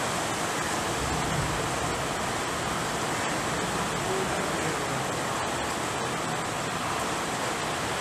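Steady rain falling outdoors, an even hiss that holds level throughout.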